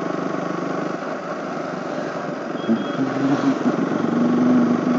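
KTM RC 200's single-cylinder engine running steadily as the motorcycle is ridden, with wind noise over the microphone.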